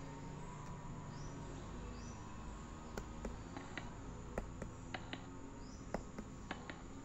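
Quiet room tone with scattered soft clicks and taps from fingers handling a plastic Talking Tom toy, and a few faint short high chirps.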